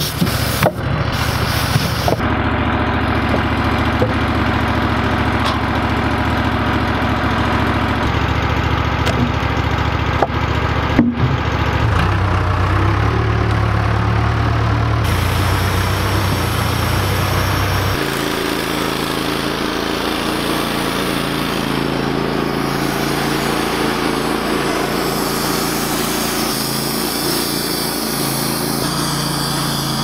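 Diesel engine of a Case 580K backhoe loader running steadily, with a few sharp knocks near the start and one about eleven seconds in. About eighteen seconds in, the engine note changes and gets slightly quieter.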